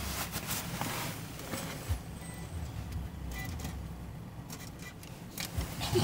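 Steady low rumble of an Opel car being driven on the road, with a few faint clicks and knocks over it.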